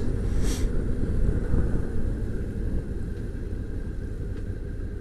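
Steady low rumble of a moving vehicle's engine and road and wind noise, easing a little about halfway through.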